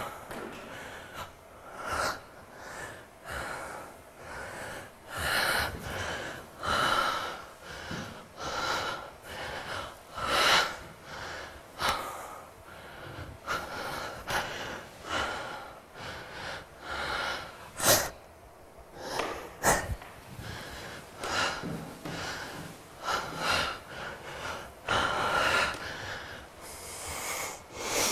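Uneven short breaths and gasps, coming roughly once or twice a second, with a sharp click about two-thirds of the way through.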